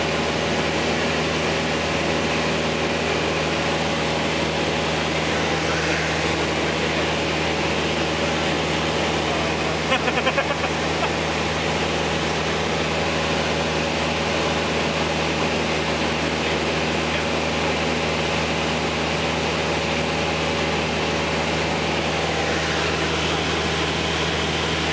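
Engine and propeller of a light single-engine plane droning steadily in flight, heard from inside the cockpit with rushing air noise, and a short burst of clicks about ten seconds in.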